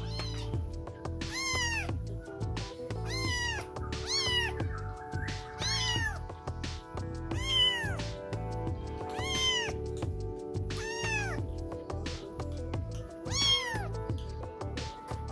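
Young kittens meowing, about nine high-pitched calls spaced one to two seconds apart, each rising then falling in pitch. Background music plays under them.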